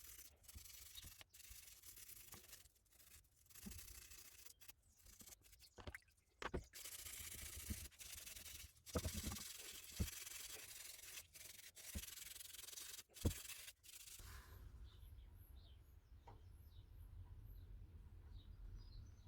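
Faint hand sanding: sandpaper rubbing in short stretches that break off abruptly, then a quieter spell with a few faint light ticks for the last few seconds.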